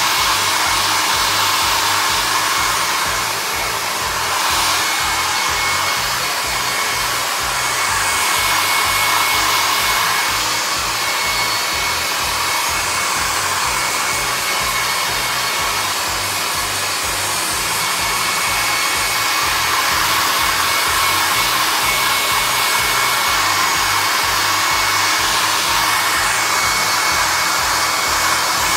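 Hand-held blow dryer running steadily: a rush of air with a high, steady motor whine, the loudness dipping and swelling a little.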